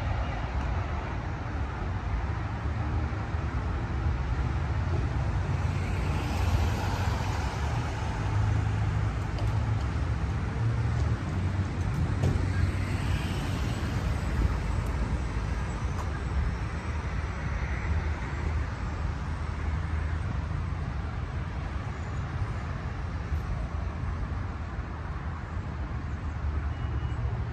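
Road traffic noise: a steady low rumble, with vehicles passing and swelling a few times.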